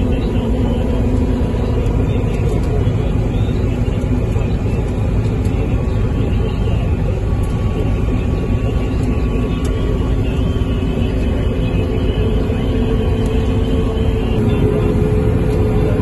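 Combine harvester running under load while cutting a standing grain crop, heard from inside the cab: a steady, unbroken drone of engine and threshing machinery.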